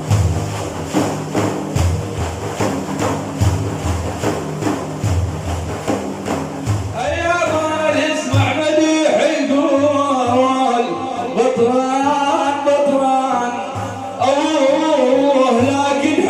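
Frame drums beating a steady rhythm for devotional praise chanting, joined about seven seconds in by voices singing a melodic hymn over the drums.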